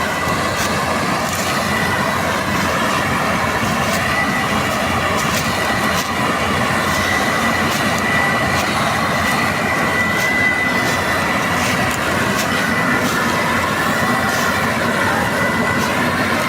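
Combine harvester running steadily at work, a continuous mechanical din with a steady high-pitched whine and scattered light clicks and rattles.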